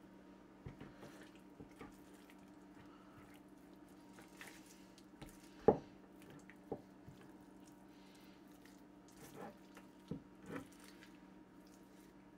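Faint wet squishing and slapping of raw pork shoulder being handled and turned over on a wooden cutting board, with one louder thump about halfway through, over a steady low hum.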